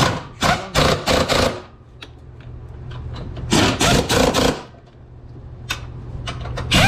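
Impact wrench hammering as it drives in the new engine mount bolts, in three short spells of quick rattling pulses: near the start, midway and at the very end. A low steady hum runs underneath.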